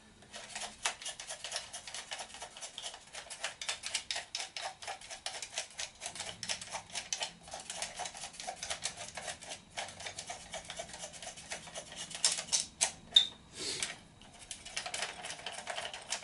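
Rapid light clicking and ticking of hard plastic as the quadcopter's landing-gear strut and its antenna wire are handled and fitted. The clicks come several a second, with a brief lull a little before the end.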